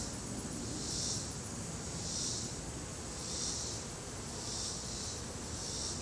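Honey bees humming around an open hive frame, under a high-pitched insect call that pulses about once a second.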